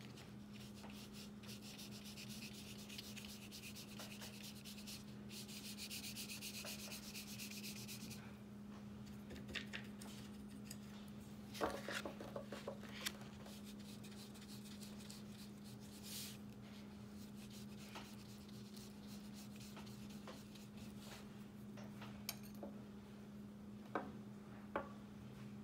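Faint scratchy rubbing of a flat watercolour brush stroking and scrubbing paint into paper, strongest for the first several seconds, then a few small taps and clicks. A steady low hum runs underneath.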